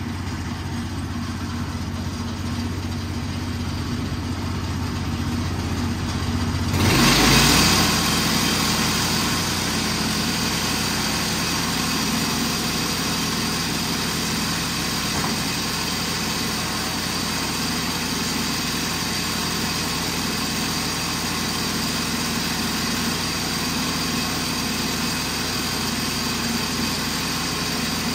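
Gas engine on a portable ripping saw idling. About seven seconds in it comes up to full speed with a loud surge, then runs steadily and louder as boards are fed through to be ripped into 2x4s.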